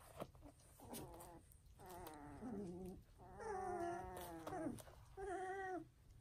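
Young puppies whining and crying: a few drawn-out, wavering whines, the longest about a second and a half in the middle.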